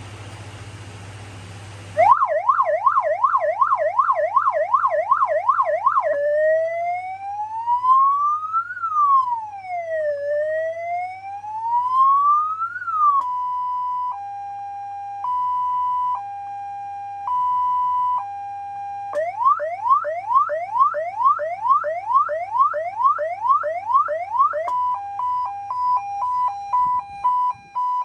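Electronic emergency-vehicle siren run through its tones. After about two seconds of steady hiss comes a fast yelp of about two and a half sweeps a second, then a slow wail rising and falling, then a hi-lo two-tone. Rapid rising sweeps follow, and it ends in a fast two-tone warble.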